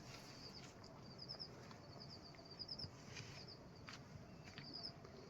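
Faint high-pitched chirping in quick runs of several notes, repeated about once a second, with a few faint clicks.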